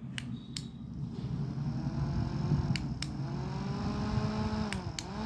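Lebon F-30 handheld rechargeable mini fan's small motor whirring, with sharp clicks of its push button as it is stepped through its speed settings. The hum dips and rises to a new pitch after the presses around the middle and again near the end.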